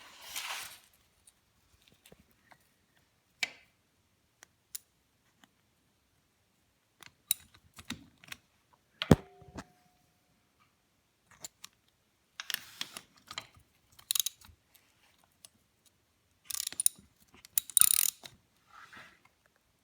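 Socket ratchet clicking in short bursts as it works on a very tight 12 mm dirt bike oil drain plug, with scattered single clicks and one sharp metallic clank that rings briefly about nine seconds in.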